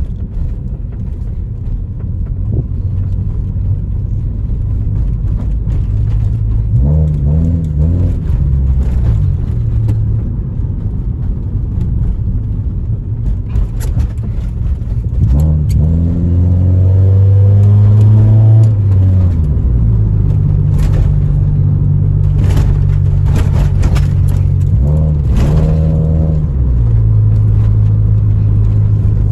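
Honda Civic EJ9 engine running while driving, the engine note climbing and dropping back several times as the car speeds up and the automatic gearbox shifts, with scattered sharp clicks or knocks in the second half. The engine is misfiring on all four cylinders (fault codes 71–74).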